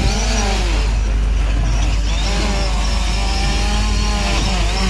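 Camera drone's propellers whining close by, their pitch rising and falling as the drone is manoeuvred in to be caught, over a steady low rumble.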